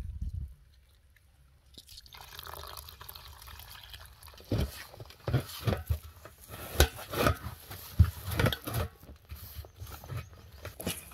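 Hands mixing a wet spice marinade of masala powders, salt and lemon into whole baby stingrays: a dull thump at the start, then from about two seconds in, irregular squelching and slapping that turns sharper and louder from about four seconds on.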